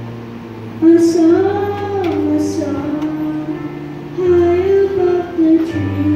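Children's choir singing a Christmas song to instrumental accompaniment with steady held bass notes; the sung melody comes in about a second in.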